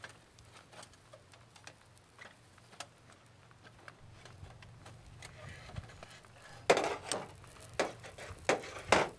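Steel fire sticks clinking and scraping against the Folding Firebox Nano stove's metal walls as they are shifted to raise the fire, with a few sharp clinks in the last few seconds. Faint light ticks come before them.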